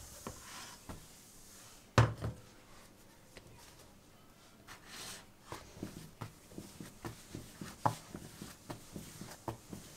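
A ball of dough hits a wooden tabletop with one loud thud about two seconds in. From about halfway through it is kneaded by hand on the table, making a run of short, soft knocks, roughly three a second.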